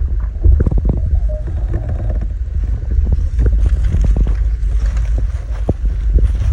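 Wind buffeting the microphone in a steady low rumble, with many irregular knocks and rustles of handling noise.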